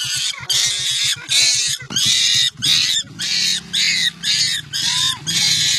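A young primate shrieking in repeated harsh bursts, about two a second, over a motorcycle engine running at idle.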